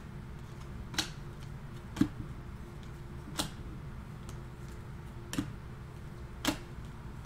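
A stack of glossy Panini Prizm basketball cards flipped through by hand, one card at a time: about five sharp clicks, a second or more apart, as each card is slid off the front of the stack.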